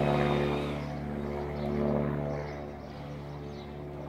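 Single-engine Cessna light aircraft overhead, its engine and propeller droning steadily and fading as it moves away. A higher whine stops about a second in.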